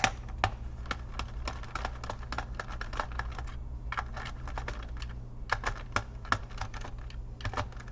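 Quick, irregular small clicks and ticks of a hand screwdriver backing screws out of a laptop's plastic bottom case, over a steady low hum.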